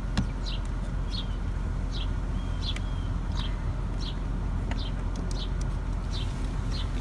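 A bird chirping over and over: short, high, falling notes repeated a little more than once a second, over a steady low background rumble.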